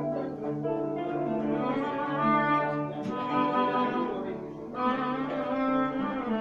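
Andalusian music: bowed strings play a melodic line of held notes, changing every second or so, with a brief drop in level near the end.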